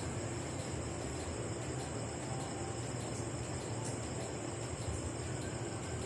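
LG Direct Drive front-load washing machine running mid-wash, a steady low churning hum of the drum tumbling the load in water. A constant high-pitched shrill sits over it.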